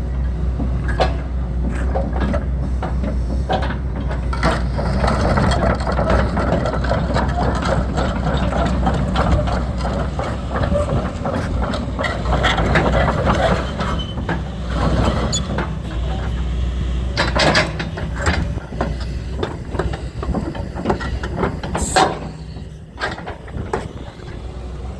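2009 Doosan DX140LC tracked excavator running, its diesel engine a steady low note under repeated clanks and knocks from the machine as it works. The sharpest knock comes about 22 seconds in.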